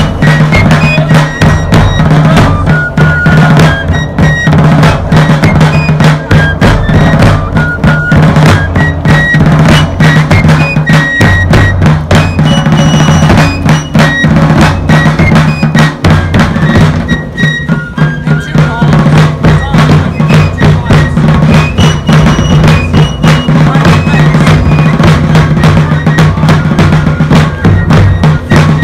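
Fife and drum corps playing a march: fifes carry a high melody over rapid snare drum strokes and rolls and bass drum beats.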